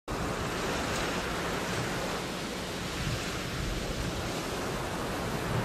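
A steady, even rushing noise like the wash of sea surf.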